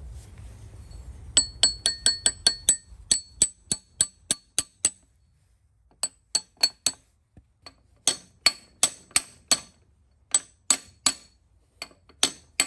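Mallet tapping on the camshaft gear of a John Deere diesel engine, driving the camshaft into the block so its gear meshes with the crankshaft gear. Quick runs of light taps, several a second, each with a short metallic ring, with short pauses between the runs.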